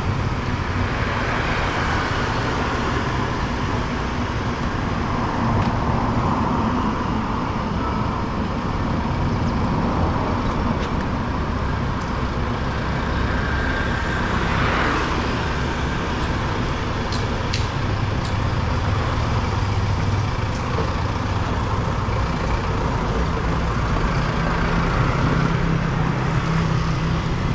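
Street traffic: passing motor vehicles run steadily as a continuous rumble, with one engine growing louder near the end.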